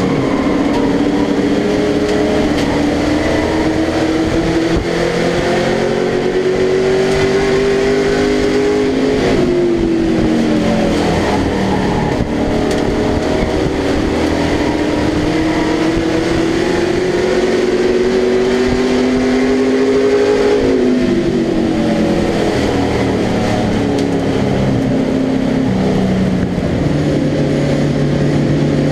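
Race truck's engine heard from inside the cabin at racing speed, its note climbing steadily under power, then dropping sharply as the driver lifts about 9 and 20 seconds in, and settling to a lower steady note near the end.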